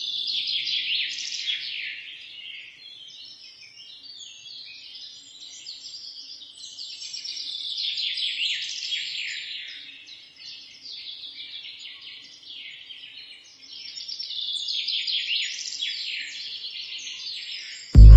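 Birds singing in three bouts of rapid, falling chirps, with quieter gaps between them. A loud sound cuts in suddenly at the very end.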